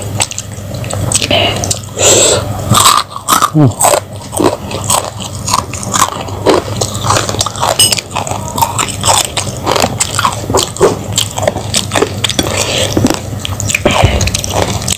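Close-miked chewing of crunchy food, a mouthful of raw vegetables with rice and fried fish, with irregular crisp crunches and wet mouth sounds several times a second.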